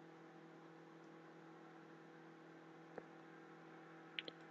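Near silence with a faint steady electrical hum, broken by a faint click about three seconds in and two quick clicks near the end, computer mouse clicks.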